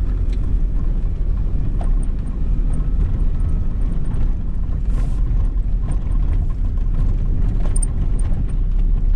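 Steady low engine and road rumble heard inside the cabin of a moving Nissan car, with a few faint ticks and rattles.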